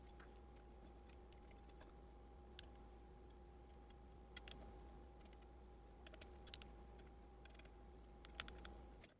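Faint, scattered small metal clicks and ticks over a low steady hum: screws being tightened into a gaming chair's back-plate mounting. The sound cuts off abruptly near the end.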